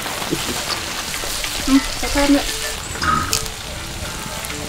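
Pan of Maggi curry instant noodles sizzling on the fire: a steady hiss with a few faint clicks.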